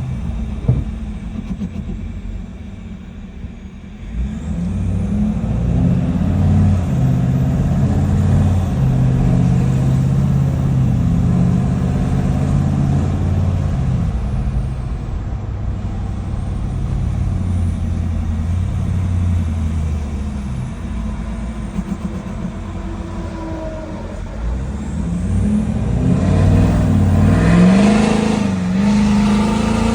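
Emissions-deleted, tuned 6.7 L Power Stroke High Output turbo-diesel V8 of a Ford F-250 running under load. It gets louder about four seconds in and swells again near the end.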